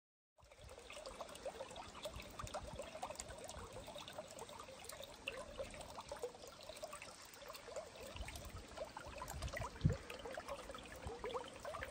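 Water trickling and splashing lightly into a garden pond, a steady faint babble. There is a soft low thump about ten seconds in.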